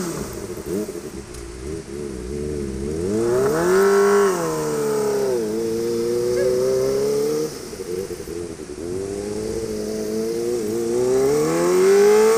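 Kawasaki ZX25R's 250 cc inline-four engine through an Austin Racing aftermarket exhaust, revving up and down, dropping in pitch twice midway, then climbing steadily in pitch near the end as it accelerates.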